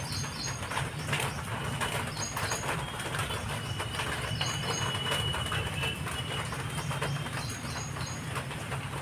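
Small birds chirping in short repeated bursts, over scattered clicks and scrapes of a kitchen knife cutting through fish skin and scales on a stone floor.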